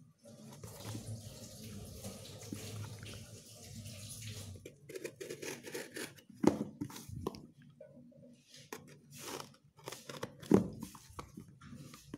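Utility knife blade scraping and slicing through packing tape on a cardboard parcel, with the box rustling in the hands. A steady scratchy rasp for the first few seconds gives way to irregular cuts and sharp snaps, the loudest about six and a half and ten and a half seconds in.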